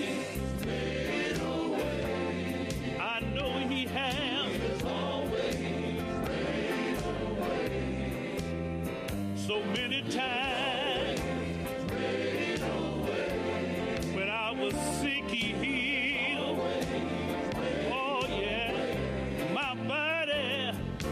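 Gospel song: voices singing with vibrato in a choir over a bass line and a steady beat.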